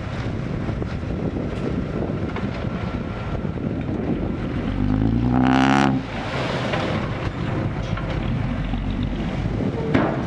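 Diesel dump truck engines running with a steady low rumble, mixed with wind on the microphone. About five seconds in, one engine revs up sharply for about a second, its pitch rising, then drops back suddenly. There is a short knock near the end.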